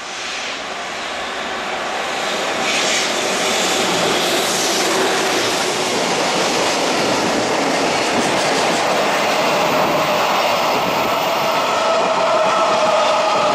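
EF210 electric freight locomotive passing close by, followed by its train of container flatcars and tank cars rolling through. The wheels clatter on the rails. The noise builds over the first few seconds and then holds steady, with a whining tone coming in near the end.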